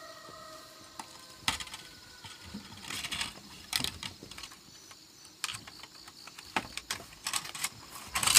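Irregular light clicks and knocks, uneven in timing and loudness, over a faint high-pitched background hum.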